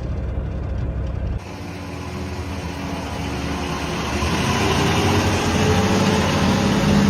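Vehicle engine running as a low rumble. About a second in, it cuts abruptly to a louder, noisier machine sound that builds up and carries a steady hum near the end.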